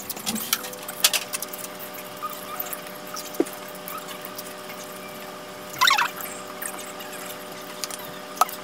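Quiet eating at a table: a few light clicks of wooden chopsticks against a plate, with a short squeak about six seconds in, over a steady low hum.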